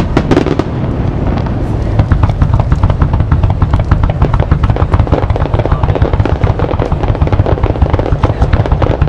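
Fireworks display: white crackling shells bursting, a dense run of rapid sharp pops that thickens about two seconds in, over a steady low rumble.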